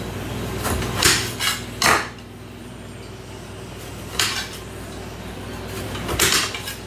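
Kitchen knife slicing through a juicy lemon and tapping the thin cutting mat beneath: several short cutting strokes, three or four in quick succession, then a couple more after a pause.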